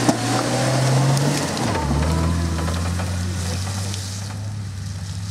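4x4 off-road vehicle's engine running, revs held up then dropping back about two seconds in and settling to a steady lower speed, with a crackling hiss over it.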